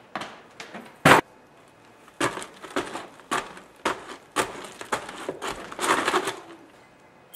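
A run of irregular knocks and clatters from hand-worked Foley props, roughly two or three a second, with one loud sharp crack about a second in.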